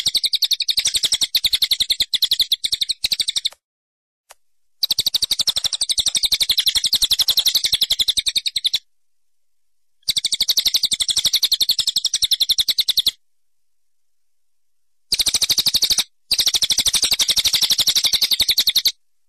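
Bird chirping in rapid, evenly spaced trills, each run a few seconds long and broken by short silences.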